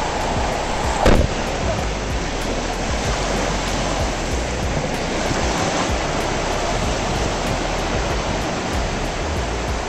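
Sea surf washing in over a sandy beach, a steady rush of breaking waves and foam, with a short louder burst about a second in.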